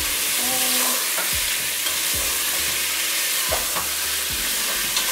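Cubed lamb and bones sizzling as they brown in oil in a pot, releasing their juices. A spatula stirs through them, scraping and knocking against the pot several times.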